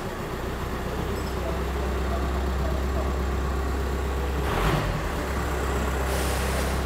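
VW T5 van engine idling cold, a steady low hum, with one short thump about four and a half seconds in. The van is in for a knock that only shows when the engine is cold, suspected to be the dual-mass flywheel.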